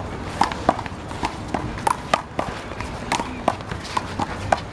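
Big blue rubber handball struck by hand and smacking off the wall and pavement in a one-wall handball rally: an irregular run of sharp slaps, about two or three a second.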